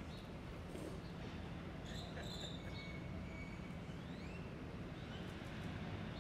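Outdoor street ambience: a steady low rumble with a few faint, short high chirps, one rising near the end.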